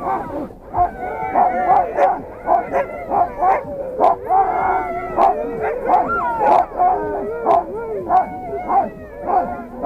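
A team of sled dogs barking, yelping and howling together, many voices overlapping, with sharp yelps about twice a second over wavering howls: the excited clamour of a team held on the anchor and brake, eager to run.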